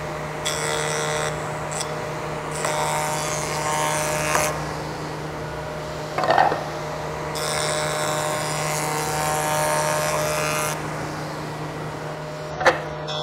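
Jointer (planer-jointer) running with a steady hum while oak strips are fed across the cutterhead to joint their edges. Three cutting passes each bring in a louder, harsher cutting sound. There is a knock about six seconds in and a sharp click near the end.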